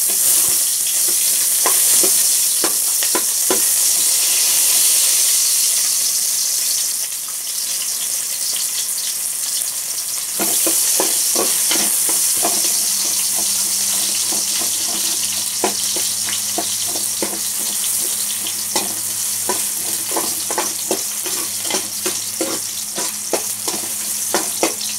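Sliced ginger sizzling in hot oil in a metal pot, with a spoon scraping and tapping against the pot as it is stirred. The taps grow more frequent about halfway through.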